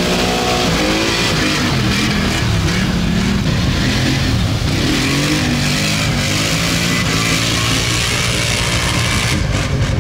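Quad (ATV) engine revving, its pitch rising and falling several times over a steady rush of noise.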